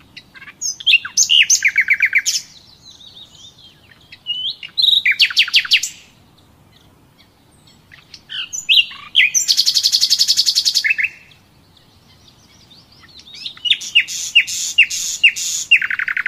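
A songbird singing: four phrases of high chirps and fast trills, separated by pauses of a couple of seconds.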